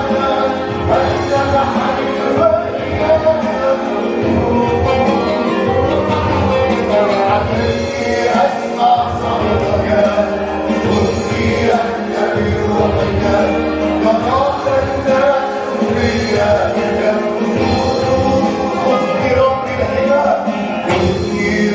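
Christian worship song: voices singing together, choir-like, over a continuous instrumental backing.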